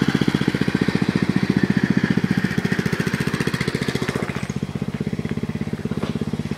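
Riding lawn mower engine running with a fast, even firing pulse, easing off slightly about four seconds in.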